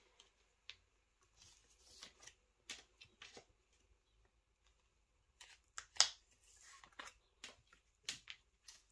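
Photocards and filler cards being handled and slid in and out of a binder's plastic pocket page: quiet scattered rustles, taps and clicks of card and plastic, with one sharper click about six seconds in.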